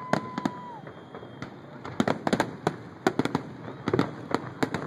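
Fireworks finale barrage: a steady whistle ends within the first second, then from about two seconds in the shell bursts come thick and fast in quick clusters of sharp bangs.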